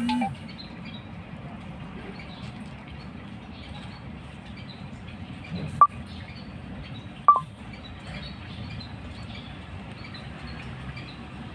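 Two short, sharp bird chirps about a second and a half apart over a steady outdoor background hum.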